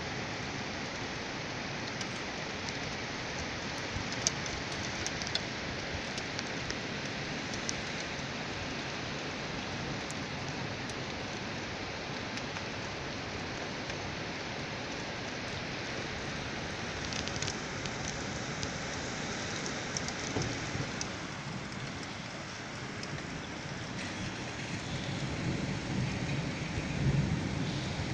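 Heavy rain falling steadily on a wet paved street and puddles: an even hiss with scattered ticks of single drops. A low rumble builds near the end.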